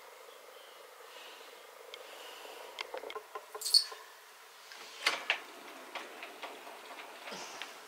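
Scattered small clicks, taps and light rustles of household things being handled, with a sharp high click a little before halfway and a few louder taps about five seconds in.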